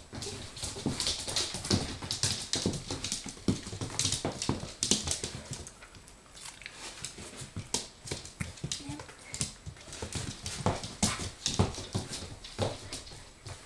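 Siberian husky puppy moving about and making small dog sounds: a busy run of quick clicks and scuffs, easing off briefly about six seconds in.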